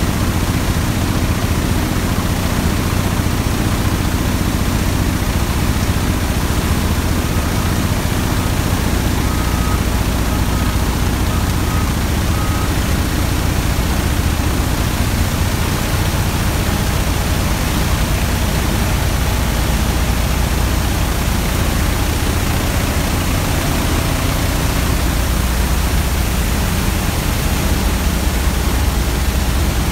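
Oilfield drilling-mud solids-control equipment running: a loud, steady din of machinery and flowing mud with a constant low hum. A run of about five short, evenly spaced beeps sounds about a third of the way in.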